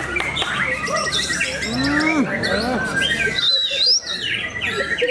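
Several competing white-rumped shamas (murai batu) singing at once: a dense, overlapping mix of whistles, rising and falling glides and quick chatter.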